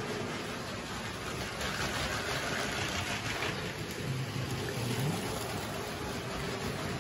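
Battery-powered Lego trains running on plastic track: a steady whirring rattle of motors and wheels, a little louder for a second or so around the middle.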